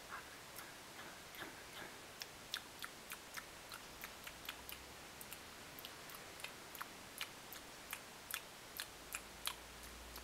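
Monarch caterpillar chewing a milkweed leaf: a quick run of tiny, crisp clicks, about three a second and uneven in strength, each one a bite into the leaf.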